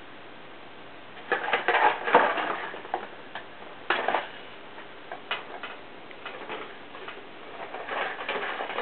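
Cat scrabbling and pawing at a cardboard tissue box: bursts of scratching and tapping start about a second in, followed by scattered clicks and taps.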